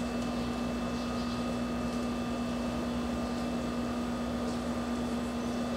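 Steady electrical hum with a constant low tone and an even hiss underneath, unchanging throughout.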